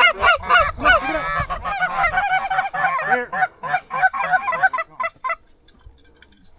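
Many overlapping Canada goose honks and clucks, rapid and loud, that stop about five seconds in.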